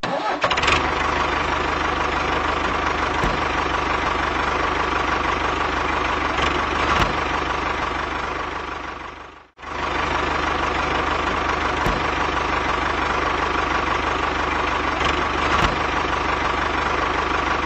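An engine running steadily with an even hum; the sound fades out just past halfway and comes straight back.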